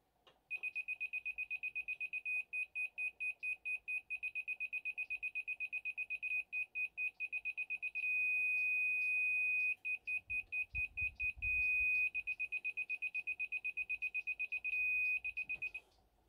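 Laser level receiver beeping: a single high-pitched tone pulsing rapidly, held as a steady tone for nearly two seconds about halfway through and briefly twice more later. The steady tone marks the receiver sitting at the laser's reference height, the rapid beeps that it is just above or below it.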